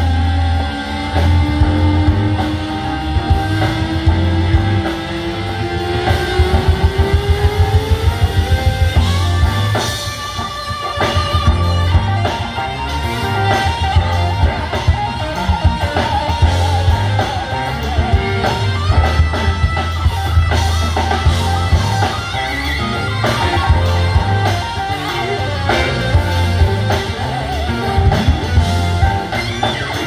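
A live band playing electric guitar, electric bass, drum kit and keyboards, with a strong, pulsing bass line. One long note slides slowly upward over roughly the first nine seconds.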